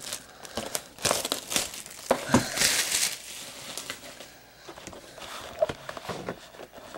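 Packaging being opened by hand on a trading-card box: plastic wrap and cardboard crinkling and tearing in an irregular run of crackles, busiest in the first few seconds and lighter after.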